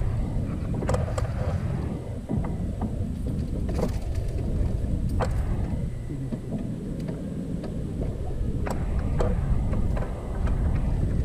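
Wind buffeting the microphone on an open fishing boat, a steady uneven low rumble, with a few sharp light clicks and knocks scattered through it.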